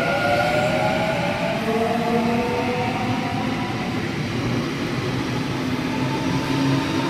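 Sydney Trains Waratah Series 2 double-deck electric train accelerating away from the platform: a steady rumble of wheels on rail under an electric traction whine that slowly rises in pitch.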